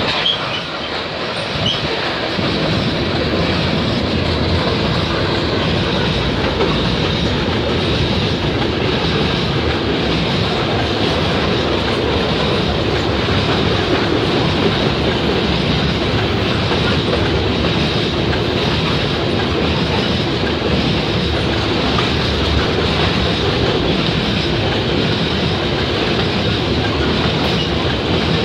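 Loaded covered hopper cars of a CN potash freight rolling past, a loud, steady rumble with the wheels clacking over the rail joints.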